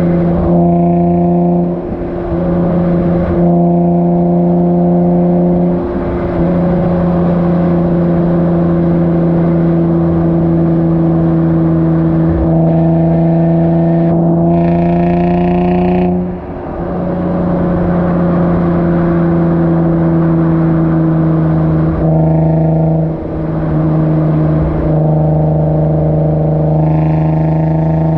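Infiniti G35's 3.5-litre V6 heard close to the tailpipes of its Motordyne Shockwave exhaust with ART pipes, running on the road at steady, nearly constant revs. The note briefly drops in level a few times and rises slightly before the deepest dip, about two-thirds of the way through.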